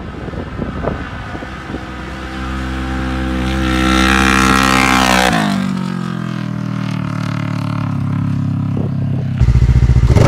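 Kawasaki KRX 1000 side-by-side's parallel-twin engine, breathing through an RPM SXS catless slip-on sport exhaust, revving hard under acceleration. The note climbs and is loudest about four to five seconds in, then drops as the machine passes and runs on at lower revs. Near the end the sound cuts suddenly to a much louder, close engine with an even pulse: the same machine on its stock exhaust.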